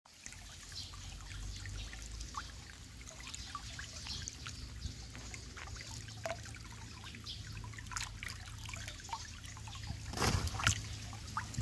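Shallow stream trickling over a bed of pebbles, with small ticks and gurgles throughout. About ten seconds in, water splashes and drips from a hand lifting stones out of it.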